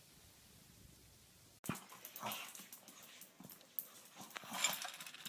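Faint hiss, then from about a second and a half in, a dog's small noises among quick clicks and clatter.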